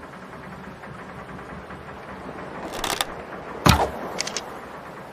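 Survival bow and arrow being shot: a brief rising noise about three seconds in, then one sharp, loud thwack, followed by two or three light clicks.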